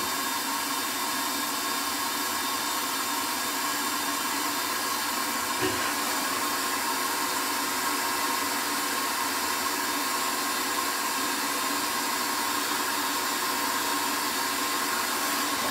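Electric heat gun switched on and running steadily, its fan blowing hot air with a steady motor hum, to shrink heat-shrink tubing over a repaired wire.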